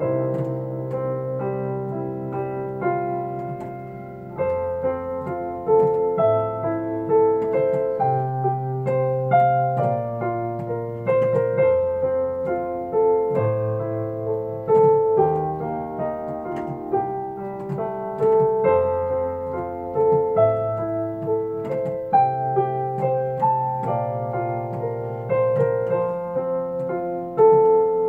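Solo piano playing: bass notes held a second or two each under a flowing line of melody and broken chords.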